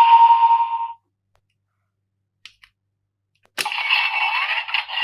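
GUTS Hyper Key toy (Ultraman Decker Flash Type) playing electronic sound effects through its small speaker. A sound cuts off about a second in, two faint clicks follow, then a sharp click and a new effect with gliding tones starts.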